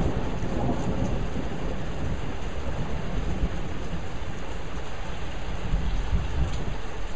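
Steady rain falling, with a low rumble of thunder underneath that is strongest near the start and swells again about six seconds in.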